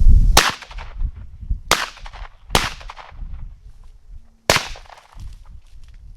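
Four shotgun shots, the first three about a second apart and the last after a longer pause, each trailing off in a short echo.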